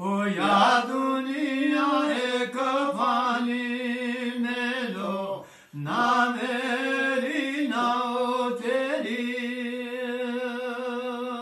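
A man singing unaccompanied in a slow, chant-like style, drawing out long gliding notes. He breaks briefly for breath about five and a half seconds in, then holds long, steady notes near the end.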